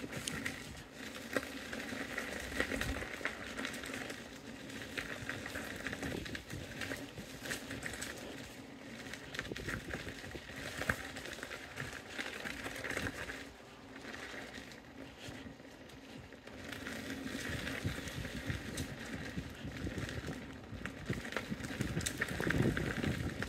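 KingSong KS-18XL electric unicycle rolling along a gravel and dirt trail: a continuous crunch and crackle of the tyre over grit, small stones and dry leaves, with a faint steady hum beneath it.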